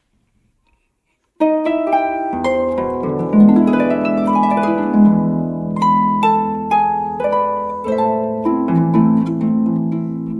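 Instrumental opening of a Portuguese fado: plucked strings play a melody of separate notes over held low bass notes, starting about a second and a half in after a short silence.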